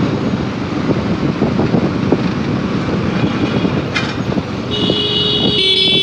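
Riding a motorcycle through city traffic: steady engine and road noise. Near the end a vehicle horn sounds for about two seconds, its pitch stepping slightly partway through.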